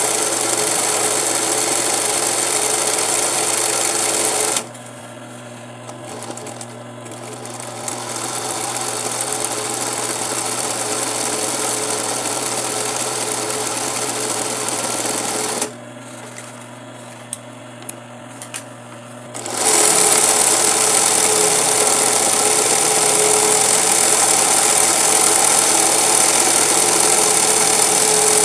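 Industrial Singer 20U zig-zag sewing machine stitching a satin-stitch appliqué edge. It stops about four and a half seconds in, leaving only a low hum, then picks up again gradually. It stops once more around sixteen seconds and runs fast again from about twenty seconds.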